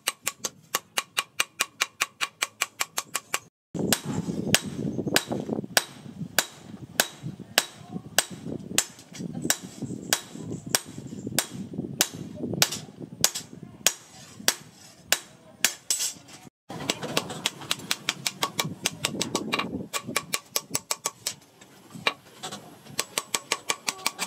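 Hand hammer beating a hot steel knife blade, forged from a motorbike sprocket, on a small steel post anvil: quick, even, ringing blows about four or five a second, with two brief breaks.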